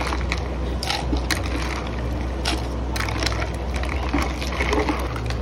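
Ladle scooping a drink full of ice cubes out of a clay pot, with scattered, irregular clinks and knocks of ice and ladle against the pot.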